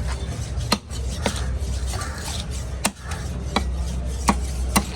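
Knife chopping through a trevally, about six sharp chops at uneven intervals over a steady low background hum.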